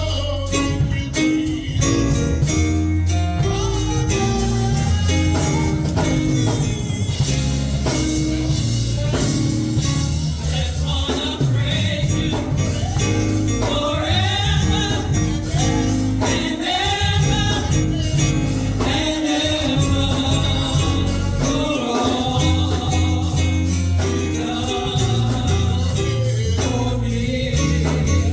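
Gospel song: voices singing over a band with a strong, steady bass line and a regular beat.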